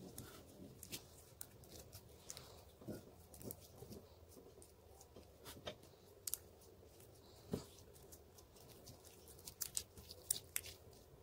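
Fluffy slime being squeezed and stretched by hand, giving faint, irregular wet clicks and small pops, with a cluster of louder pops near the end.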